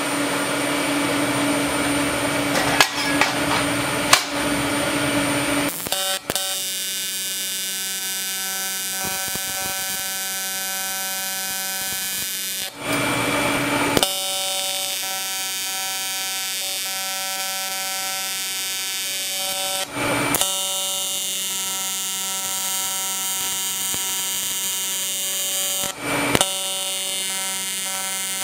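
AC TIG welding arc on 5000-series aluminum, buzzing steadily and loudly as it welds. The buzz breaks off briefly a few times.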